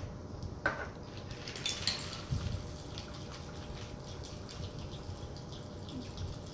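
Margarita poured from a cocktail shaker over ice in a glass: a thin stream of liquid trickling onto the ice, after a click or two as the shaker's cap comes off.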